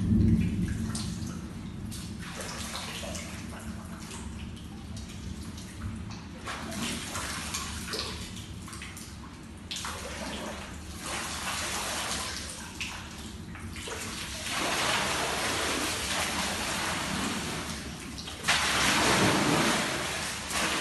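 Water sloshing and lapping in an indoor apartment swimming pool, swelling about every four seconds and loudest near the end, set rocking by the skyscraper swaying in a storm.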